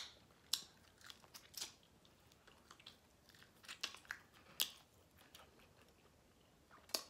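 Close-up chewing and biting while eating barbecued ribs off the bone: scattered short, wet mouth clicks and smacks, bunched in the first second or so and again around the middle, with quieter stretches between.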